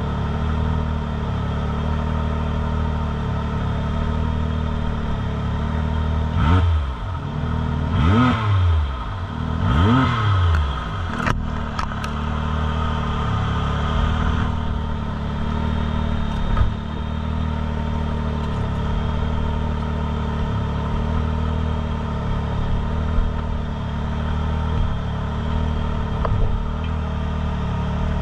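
Side-by-side UTV engine idling steadily, blipped up in three quick revs about six to ten seconds in.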